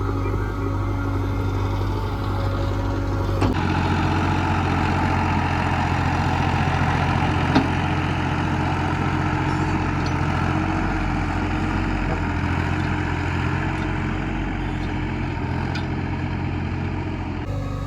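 Heavy diesel engine running steadily. Its sound changes abruptly about three and a half seconds in.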